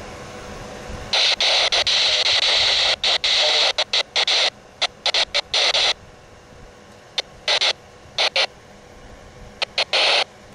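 Radio receiver hissing loud static in choppy bursts that cut in and out abruptly, the squelch opening and closing on a weak, breaking-up transmission. Before that, about the first second holds only a low steady background hiss.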